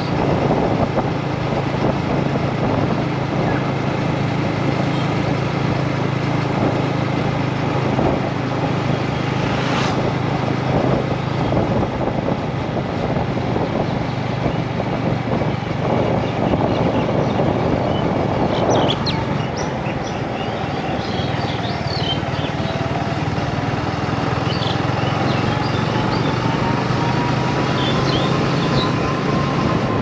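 Yamaha MT-15's single-cylinder engine running at a steady cruise, heard from the rider's position with road and wind noise.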